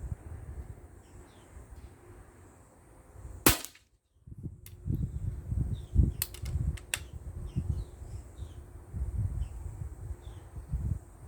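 A single shot from a Steyr LG110 pre-charged pneumatic air rifle, a sharp crack about a third of the way in, followed by a few faint clicks. Wind rumbles on the microphone throughout, with faint bird chirps.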